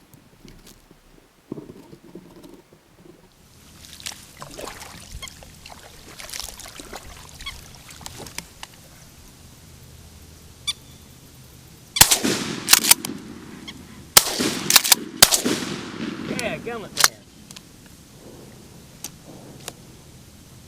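Shotgun fired several times in quick succession at a moorhen: a cluster of sharp blasts over about five seconds, past the middle.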